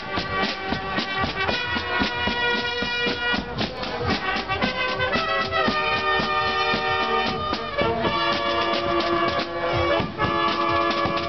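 Marching show band playing: rapid snare-drum strokes and bass drum under trumpets holding a melody.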